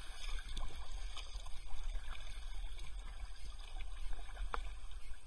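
Water splashing and trickling around a paddled kayak on a river, with a few short, sharp splashes from the paddle strokes.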